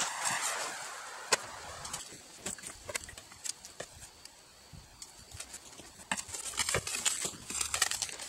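Clear plastic stretch wrap crinkling and rustling as it is pulled off a boxed furnace, in short crackles with a few sharp clicks, quieter in the middle and busier near the end.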